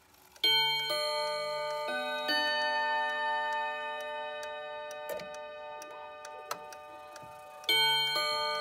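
Reguladora wall clock's Portuguese-made movement playing its chime melody: four ringing notes struck a half-second to a second apart, each hanging on and slowly fading, with a second phrase starting near the end. The clock's steady tick runs underneath.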